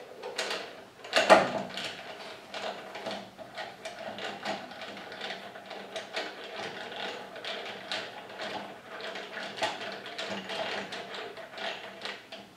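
Hurricane HTC125 four-jaw scroll chuck being wound open with its chuck key: a steady run of small metallic clicks and ticks as the scroll turns and the jaws slide out. There is a louder knock about a second in, over a faint steady hum.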